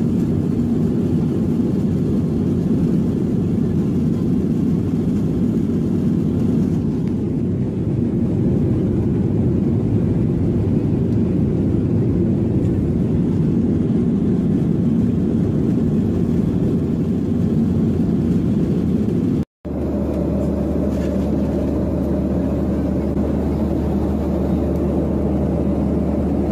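Steady noise of an airliner's engines and airflow heard inside the passenger cabin. About 19 seconds in it cuts off abruptly and gives way to a smoother, even cabin hum with a strong low drone.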